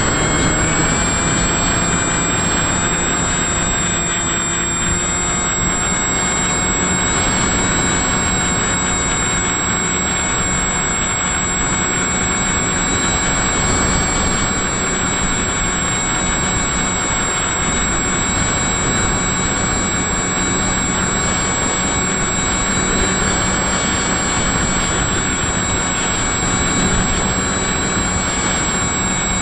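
Model aircraft's motor and propeller whining steadily, with a small pitch step about a second in and again around four to five seconds in as the throttle changes, over constant wind rush heard from the camera mounted on the aircraft.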